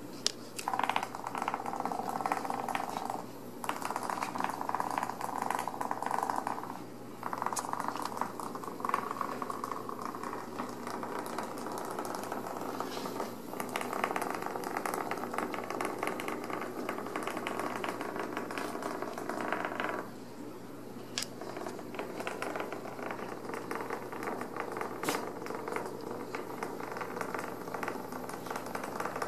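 Kittens scrabbling and pouncing among sheer organza drawstring bags on a wooden floor: the fabric rustles and crinkles in stretches of several seconds, with a few sharp clicks.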